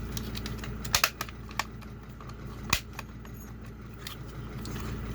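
A handful of sharp clicks and taps from a dashboard HVAC climate control module being handled, the loudest pair about a second in and another near the three-quarter mark, over a steady low hum.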